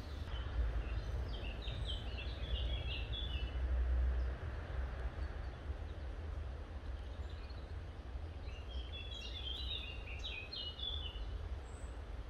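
Wind buffeting the microphone in an uneven low rumble, strongest about four seconds in, with a songbird singing quick runs of high chirping notes about a second in and again about nine seconds in.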